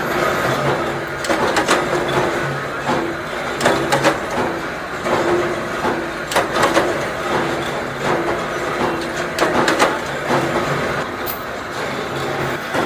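Production machinery running steadily, with frequent irregular metallic clicks and clanks over a constant mechanical din.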